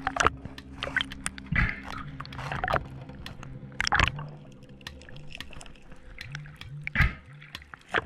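Underwater sound picked up by a camera in its dive housing while the diver swims over a reef: water rushing and bubbling with many scattered clicks and crackles, and louder rushes about one and a half, four and seven seconds in.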